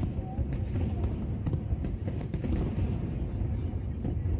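Fireworks bursting, many sharp cracks scattered over a steady low rumble.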